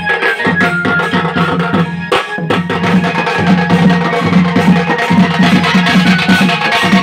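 Loud dance music with fast, dense drumming and a short break about two seconds in.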